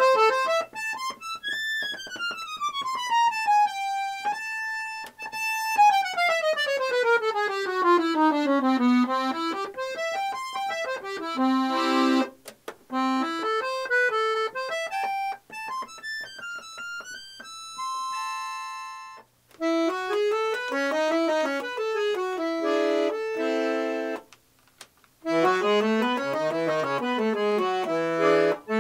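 Petosa AM 1300 piano accordion played solo: fast descending and ascending runs on the treble keyboard, a few held chords, then fuller chords with the bass buttons near the end. The playing breaks off briefly twice.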